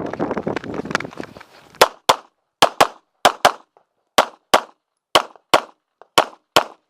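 Handgun fire during a practical-shooting course of fire: a dense, rapid clatter of reports for the first second and a half, then six quick double-taps, twelve sharp shots in pairs about a second apart. The pairs are the typical two hits per target.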